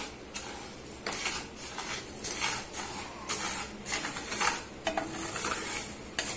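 Wooden spatula stirring dry-roasted rice grains around a frying pan, a rustling scrape of grains with each of many quick, irregular sweeps.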